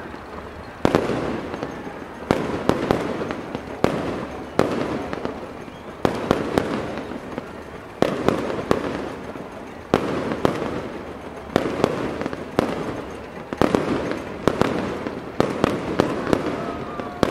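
Professional fireworks display: aerial shells bursting with a sharp bang every second or two, some in quick pairs or threes, each trailing off in an echo.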